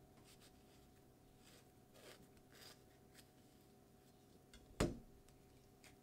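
Light rustling and scraping of hands working at a plastic cutting board, then one sharp knock on the board about five seconds in, over a faint steady hum.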